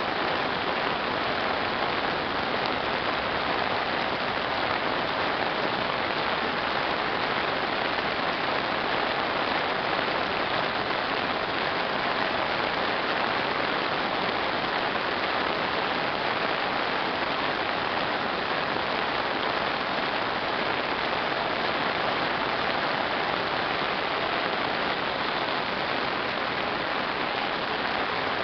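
Heavy rain pouring down on a paved road: a steady, even hiss.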